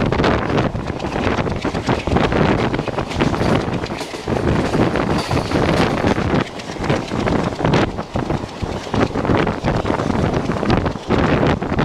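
Wind rushing against the microphone at an open train window, over the noise of the moving passenger train on the rails; loud and gusting throughout.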